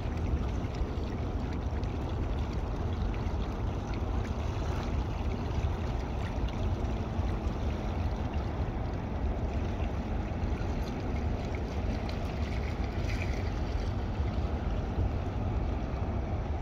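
Steady rushing noise with a deep low rumble, even and unbroken.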